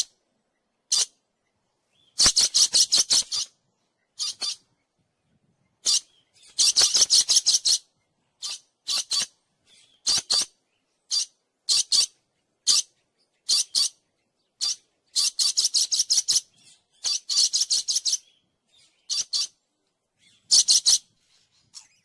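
Dusky lories calling: short, shrill, high-pitched calls, some single and some in quick runs of about eight to ten notes lasting about a second, with short pauses between.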